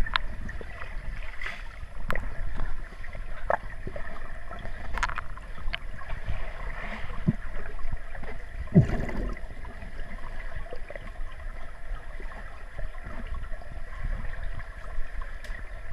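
Underwater swimming-pool sound picked up by a submerged camera: a steady low rumble of the water with scattered clicks and knocks, the strongest about nine seconds in.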